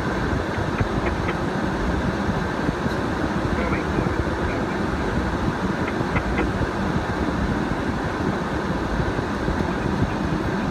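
Steady low rumble of a 4x4 driving over a muddy, rutted woodland track, heard from inside the cabin, with a few faint ticks.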